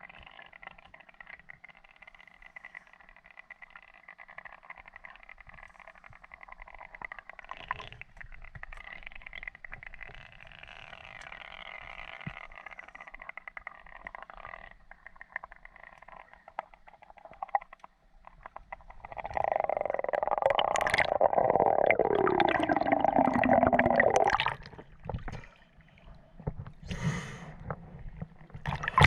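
Underwater sound picked up by a spearfisher's camera while diving: a faint steady hiss with a thin high tone. About nineteen seconds in comes a loud rushing, gurgling stretch of about five seconds with a pitch that falls, followed by scattered knocks.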